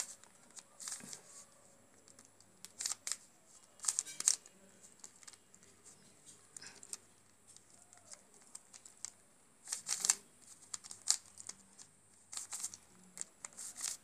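A 3×3 Rubik's cube being turned by hand, its plastic layers clicking and clacking in short bursts of quick turns with pauses between, as the cross is built on the top layer.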